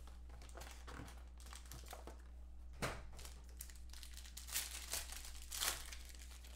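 Foil wrapper of a trading-card pack crinkling and tearing as it is ripped open by hand. Scattered crackles, with louder bursts about three seconds in and again around five seconds in.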